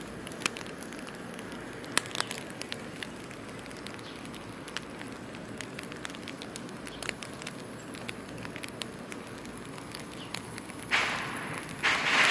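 Bratwursts sizzling on a small grill, with fat crackling and popping in scattered sharp clicks over a steady hiss. Near the end the hiss swells louder twice.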